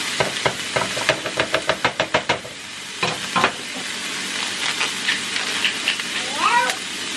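Diced onions sizzling in oil in a frying pan, stirred with a spatula: quick scraping taps against the pan, about five a second, over the first two seconds or so, a knock around three seconds in, then steady sizzling.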